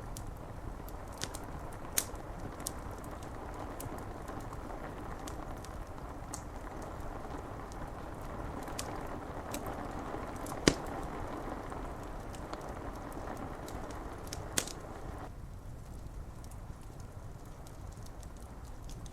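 Rain pattering on window glass as a steady hiss, with a wood fire crackling in scattered sharp pops, the loudest about halfway through. The rain hiss thins suddenly a few seconds before the end.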